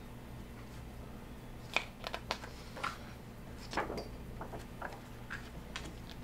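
Pages of a large glossy photo book being turned by hand: scattered short paper rustles and flicks, with a fuller page-turn swish about four seconds in, over a low steady hum.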